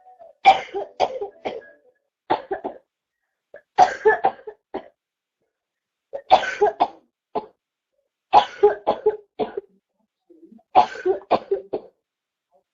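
A girl coughing in about six bouts, each a quick run of several coughs, with short silent pauses between bouts.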